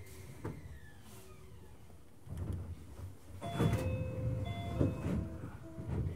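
Running noise inside a Keio new 5000 series train car. Wheels knock over rail joints in a low rumble that grows louder about two seconds in, while steady electrical tones from the traction equipment switch on and off and step in pitch.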